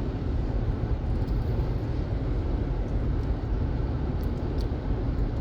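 Steady road noise inside a moving car: a deep, even rumble of tyres and engine.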